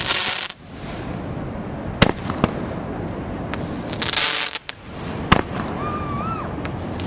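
Consumer fireworks going off: two hissing bursts about half a second long, one at the start and one about four seconds in, and sharp single bangs about two and five seconds in.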